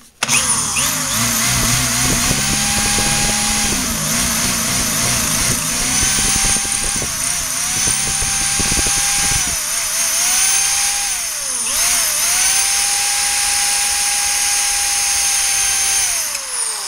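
Electric drill boring out the head of a steel thru bolt on a pool pump motor's end bell, running steadily, its pitch dipping and picking up again several times.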